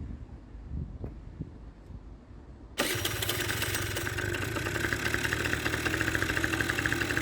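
Kymco Super Fever ZX 50cc two-stroke scooter engine starting: low rumbling and knocks, then about three seconds in it suddenly catches and runs steadily at a fast idle with the choke on.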